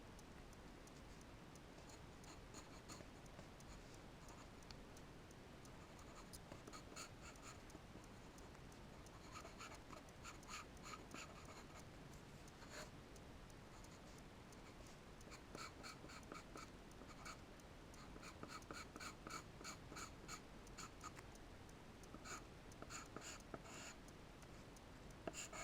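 Charcoal scratching across paper in runs of short, quick strokes, sparse at first and coming in dense clusters from about six seconds in.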